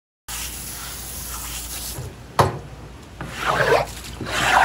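Wet plastic cutting board being scraped and wiped, two rubbing swells near the end, with one sharp knock about two and a half seconds in.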